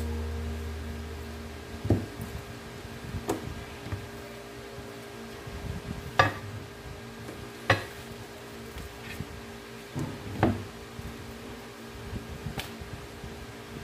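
Scattered light knocks and taps, about seven of them, from hands unrolling and handling a sheet of pie pastry on a plastic cutting board over a stainless steel counter, with a faint steady hum underneath. Background music fades out at the start.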